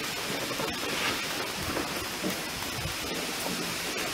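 Steady rushing of water, with a great white pelican's wingbeats heard only faintly as a few soft low thuds under it.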